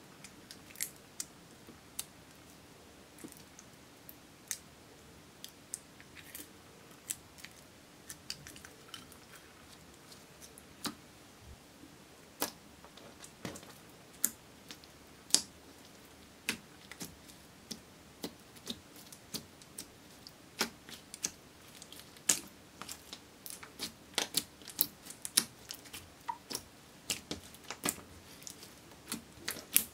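Clear slime being mixed and kneaded by hand, giving short, sharp, irregular clicks and pops that come faster and louder in the second half.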